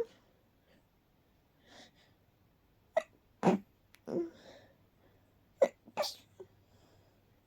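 A person's stifled, held-back sneezes: short sharp bursts in two clusters, about three seconds in and again about five and a half seconds in, with quick breaths between.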